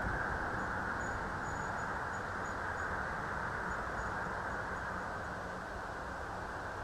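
Steady outdoor background noise, a dull even hiss and rumble, with a string of faint, very high short peeps in the first few seconds.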